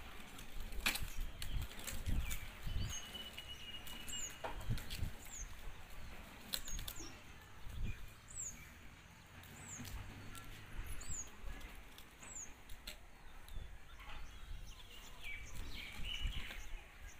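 Child's plastic ride-on tricycle rolling over concrete, with scattered clicks and rattles and an uneven low rumble. A short high falling chirp repeats about every second and a half until near the end.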